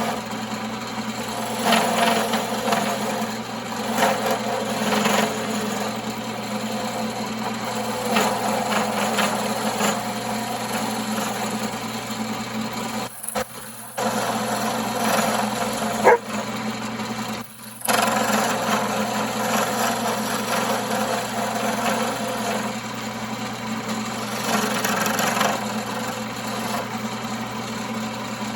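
1939 Pow-R-Kraft wood lathe running with a steady motor hum, while a turning tool scrapes and cuts the spinning wood in repeated bursts of a second or two. The sound drops out briefly twice, with a sharp click between.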